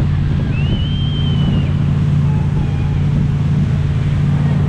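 Motorboat engine running steadily under way, with wind and rushing water noise over it. A brief high thin call rises and falls about half a second in.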